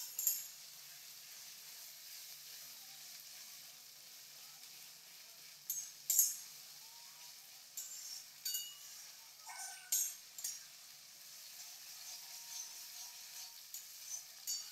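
Chopped tomatoes with onion and ginger-garlic paste frying in oil in a steel wok with a steady sizzle. A steel spatula clinks and scrapes against the wok now and then.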